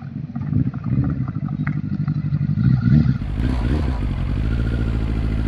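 Kawasaki Z800's inline-four engine running through an aftermarket Akrapovic exhaust with a long silencer, unevenly for the first three seconds, then steadier.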